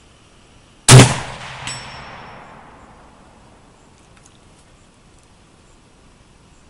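A single rifle shot from a Type 99 Japanese sniper rifle in 7.7 Japanese, about a second in, its report trailing off over the next two seconds. A fainter crack follows under a second after the shot.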